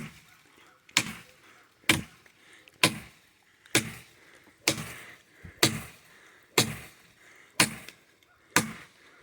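Honshu Tactical wakizashi short sword chopping into wood, about ten steady strokes roughly one a second, each a sharp thwack.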